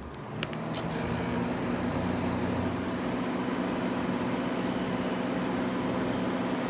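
Frigidaire air conditioner switched to low cool: a couple of clicks, then its compressor and fan start and settle into a steady hum that builds over about the first second and holds.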